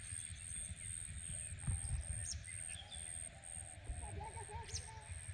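Outdoor ambience: insects calling in fast, evenly repeated high pulses over a steady low rumble. There is a knock about two seconds in and short bird calls near the end.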